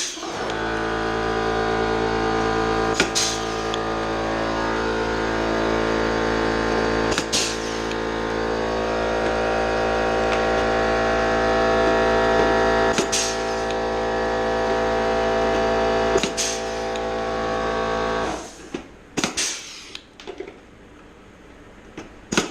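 An electric motor runs steadily with a hum. It starts abruptly and cuts off about 18 seconds in. Sharp snaps sound four times while it runs and a few more after it stops, in keeping with rivets being set.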